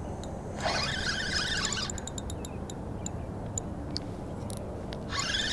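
Daiwa Fuego LT spinning reel working against a freshly hooked fish: two bursts of whirring, one of just over a second starting about half a second in and a shorter one near the end, with scattered light ticks in between.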